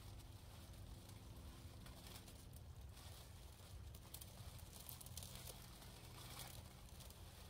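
Near silence: faint outdoor background with a low steady hum and a soft hiss.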